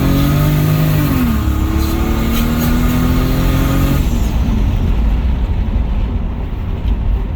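Lexus SC300's turbocharged 2JZ-GE inline-six accelerating hard. The revs climb, drop at a gear change about a second in, and climb again. The engine note then cuts off about four seconds in, leaving steady road and wind noise.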